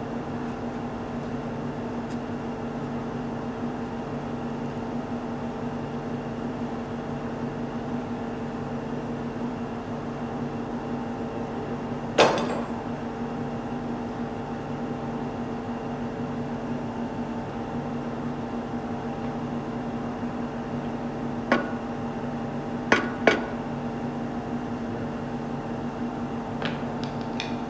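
Sharp metallic clinks and knocks of hand tools and engine parts being handled: one ringing knock about twelve seconds in, three more in quick succession around twenty-two seconds in, and faint clicks near the end. A steady low hum runs underneath throughout.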